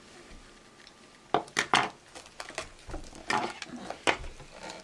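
Small toy packaging being handled and opened: a few sharp plastic clicks and rustles, starting about a second and a half in.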